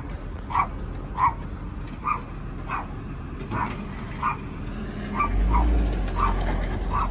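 A dog barking over and over, short barks about one and a half a second. A low rumble, likely the garbage truck's engine, swells underneath for the last couple of seconds.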